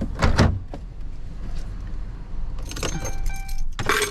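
Pickup truck engine idling as a low steady hum, with handling sounds around it: a heavy thump just after the start, keys jangling about three seconds in, and another loud knock near the end.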